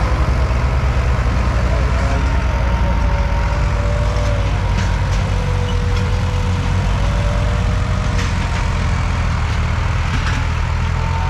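Diesel farm tractors running hard under load, pulling soil-filled land levelers through loose sandy earth: a heavy, steady engine drone.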